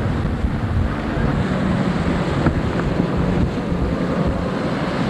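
Wind buffeting the camcorder microphone, with the steady distant drone of offshore racing powerboat engines underneath, which becomes steadier about a second in.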